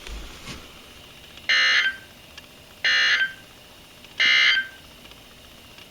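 NOAA Weather Radio's Emergency Alert System end-of-message code: three short, buzzy digital data bursts about 1.4 s apart, the signal that the broadcast alert is over.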